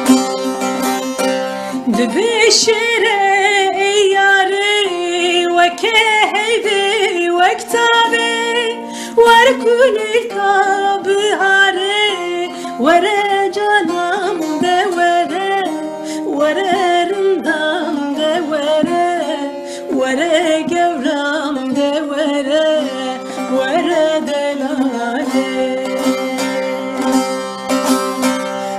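Folk song: a voice singing an ornamented, wavering melody over a plucked string instrument. The instrument plays alone for the first couple of seconds before the voice comes in.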